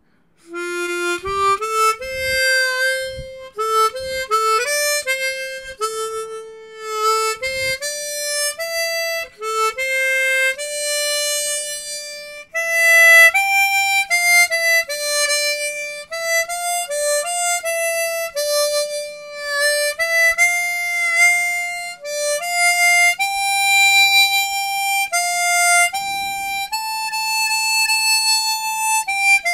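Hohner Xpression 12-hole chromatic harmonica played solo in a clean tone, a single slow melody line that starts about a second in, with a slight vibrato on some held notes.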